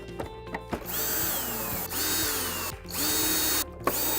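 Cordless drill-driver driving in the body screws of a Polaris Quattro Sport pool cleaner, in several short bursts, each winding up and back down.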